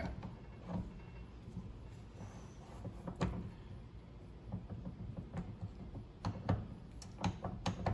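Scattered light clicks and knocks from handling small machine parts and tools at a mini lathe, coming closer together near the end, over a faint low hum.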